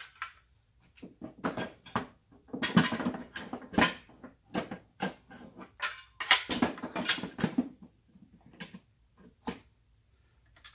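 The Barrett M82A1's heavy upper and barrel assembly knocking and scraping against the hard plastic insert of a Pelican case as it is set down into it. The irregular clunks and rubs thin out near the end.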